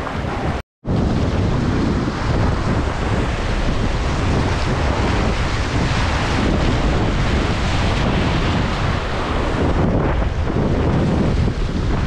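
Rushing whitewater of a river rapid, with wind buffeting the microphone. The sound breaks off completely for a moment just under a second in, then comes back a little louder.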